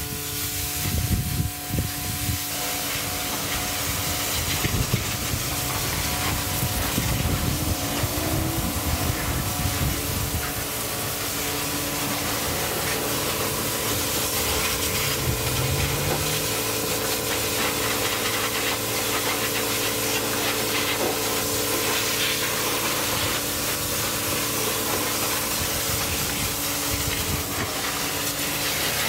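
Pressure washer jet spraying water onto a car's body panels and wheels: a steady hiss with the machine's steady hum underneath, and uneven low rumbling for about the first ten seconds.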